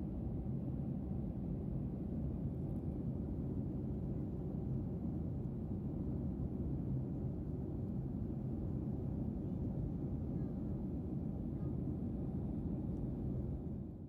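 Jet airliner cabin noise in flight: a steady low rumble with a faint hum running through it.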